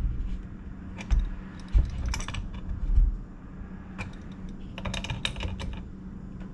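Irregular metallic clicks and light knocks of a wrench working the nuts on battery terminal posts, with a quick run of clicks about five seconds in, over a low steady hum.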